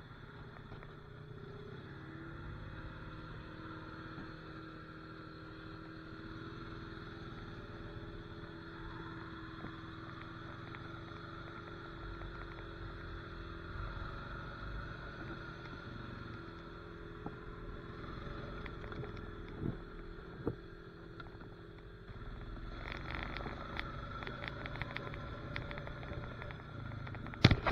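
Honda Rancher ATV's single-cylinder engine running steadily while riding a dirt trail, heard from on board with tyre and chassis noise. A few sharp knocks or clatters near the end.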